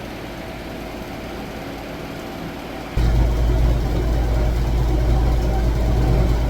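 Steady low hum of a running motor, which abruptly gets much louder and deeper about three seconds in and holds there.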